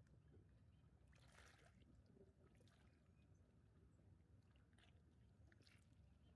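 Near silence: a faint low background rumble with a few soft, brief hissy rustles.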